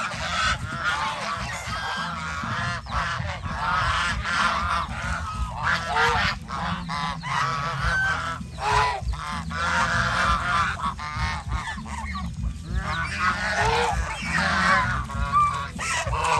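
A flock of domestic geese honking, many calls overlapping without a break, over a steady low rumble.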